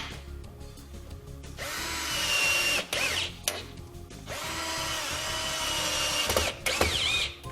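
Power drill driving screws into pocket holes. It runs twice for a second or two, then gives a short burst near the end, and its whine falls away each time the trigger is let go.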